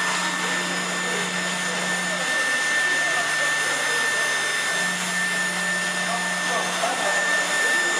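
ATC CNC router running: a steady whir with a thin high whine throughout, and a lower motor hum that comes in twice, for about two seconds at the start and again for about three seconds near the end, as the spindle head travels across the table.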